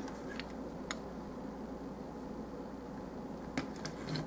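Steady background hum and hiss, with a few faint clicks as a plastic action figure is turned over in the hands.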